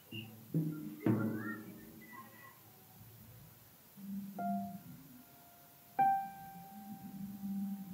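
Sparse, free-form jazz piano. Low notes are struck about half a second and a second in, then single higher notes come about four and six seconds in, each left to ring and fade with quiet gaps between.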